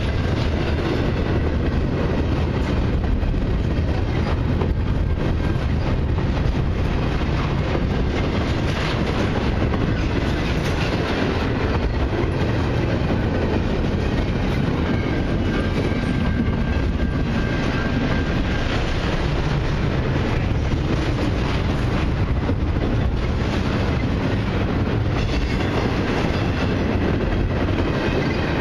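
Double-stack intermodal well cars of a long freight train rolling past: a steady rumble of steel wheels on the rails.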